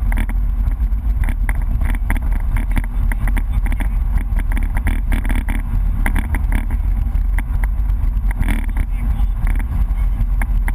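BMW E30 rally car's engine running at speed, heard from inside the cabin as a steady low drone, with road noise from the tyres.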